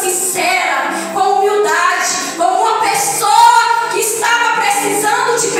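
A woman singing with long held notes, her voice gliding between pitches.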